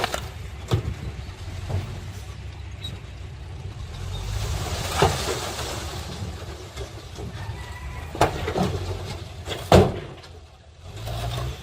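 Heavy diesel construction machinery running with a low rumble, broken by several sharp metallic knocks and bangs, the loudest near the end.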